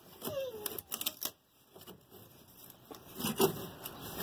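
Old fiberglass patch being pulled up by hand from a boat floor, crackling and snapping in a run of short sharp clicks as it tears away, with a louder cluster of cracks near the end.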